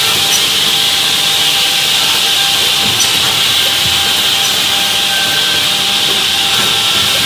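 Advantage 320 edgebanding machine running steadily: a constant high hiss over a steady motor hum, with a few faint ticks.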